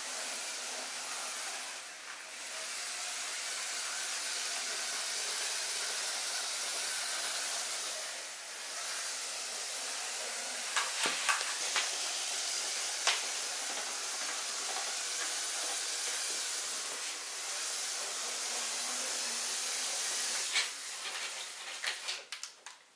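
LEGO model suspension train's Power Functions M-motors and gear trains running, a steady whirring hiss that dips and swells a few times as the train moves around the loop. A few sharp clicks come a little past the middle and again near the end.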